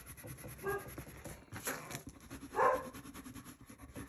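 A dog barking in the distance, twice, about two seconds apart.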